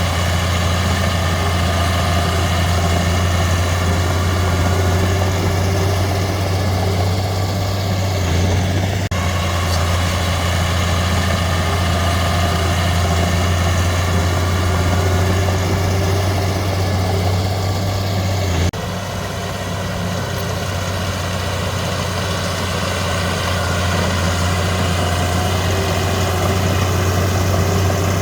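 Heavy diesel engine of earthmoving machinery running steadily at constant speed, with a deep hum. The sound breaks abruptly twice, about 9 and 19 seconds in, and is a little quieter after the second break.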